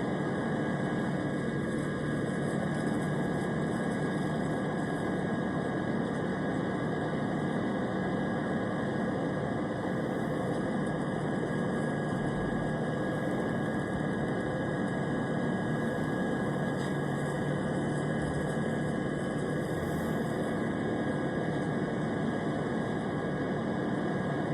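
Steady airplane engine drone: an even, unbroken rushing noise with a faint constant high tone running through it.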